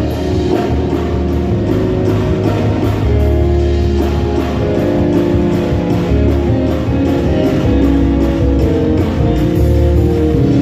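Live band playing instrumental music, with guitar over a bass line and a steady beat.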